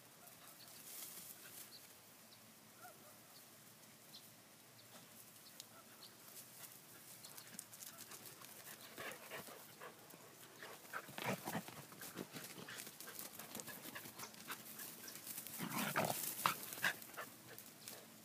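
Collie puppies barking and yapping in short, scattered bursts, faint at first, then in two clusters, the louder one about three quarters of the way in.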